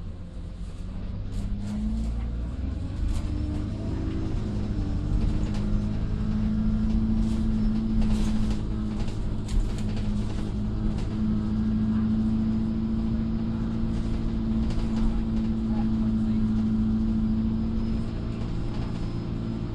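Alexander Dennis Enviro200 single-deck bus heard from inside the passenger saloon: the engine drone builds and rises in pitch over the first few seconds as the bus gets under way, then holds steady. Scattered rattles and clicks sound through it.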